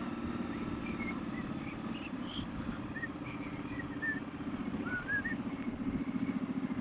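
Triumph Scrambler 1200's parallel-twin engine running at low revs as the motorcycle rolls slowly, a steady pulsing throb that grows a little stronger in the second half. Small birds chirp faintly over it.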